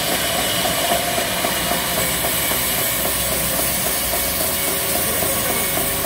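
Large band sawmill running and cutting lengthwise through a banyan log, a steady hissing noise of the blade in the wood over the even hum of the machine.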